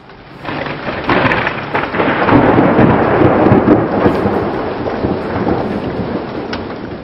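A thunderstorm: a long roll of thunder over steady rain, swelling about a second in, loudest in the middle and slowly fading.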